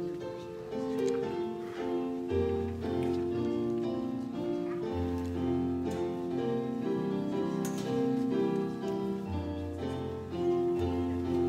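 Slow instrumental music led by piano or keyboard, held chords over low bass notes that change every second or two.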